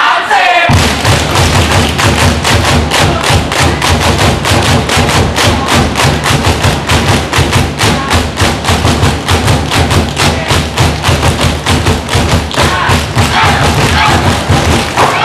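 Loud, fast, even drumming, about five deep thumping beats a second, starting just under a second in. Voices shout over it near the end.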